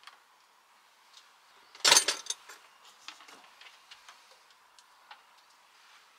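Small clicks and metal taps from a screwdriver working on a drinking-water tap fitting in a kitchen worktop, with one louder clatter of several quick knocks about two seconds in.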